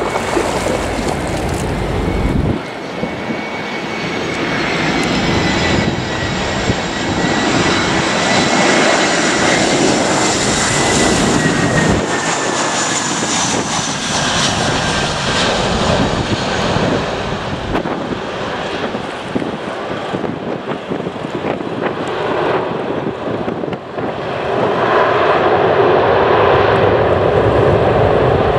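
Airbus A321-200's twin CFM56 jet engines on landing: a high fan whine that slowly falls in pitch as the jet comes in and passes. About 25 s in, a louder, deeper rush builds and holds as reverse thrust spools up on the rollout.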